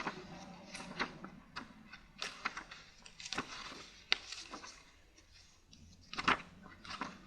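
Irregular rustling, taps and clicks of small objects being handled at close range, a few louder knocks among them, over a faint low hum.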